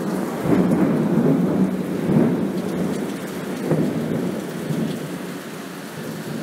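Thunderstorm sound bed: steady rain with low rolling thunder, the rumble easing off gradually in the second half.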